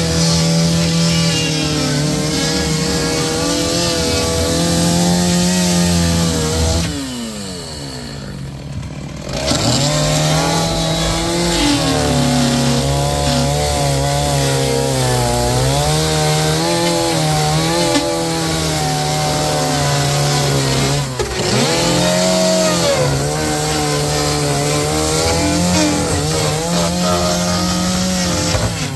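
Chainsaw running and cutting into a boat to get at an enclosed fuel tank, its pitch wavering as it works under load. About seven seconds in it drops back toward idle for a couple of seconds, then revs up and cuts again, with another brief dip near twenty-one seconds.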